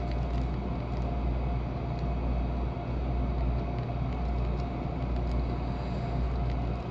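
A furnace running with a steady low rumble and hum, with faint light clicks of a pick raking the pin tumblers of a Master Lock Magnum M115 padlock.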